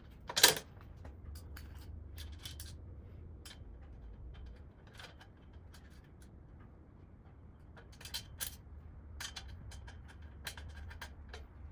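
Scattered light metallic clicks and taps of steel tool-cart hardware being handled and fitted: a corner brace, bolts and washers. The sharpest click comes about half a second in and a small cluster follows near the end, over a faint steady low hum.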